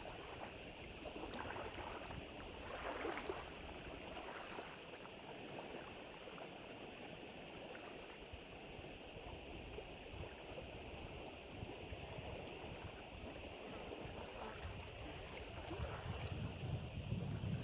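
Small waves lapping at a lakeshore in strong wind, with wind buffeting the microphone as a low rumble that grows near the end.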